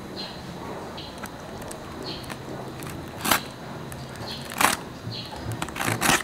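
Snap-off utility knife blade slitting the packing tape and cardboard along a box seam: a quiet scraping broken by sharp crackles and snaps, the loudest about three seconds in, around four and a half seconds, and a cluster near the end.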